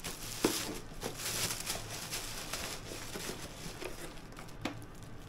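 Plastic packaging bag crinkling and rustling as a vacuum sealer is pulled out of it, with one sharp tap about half a second in.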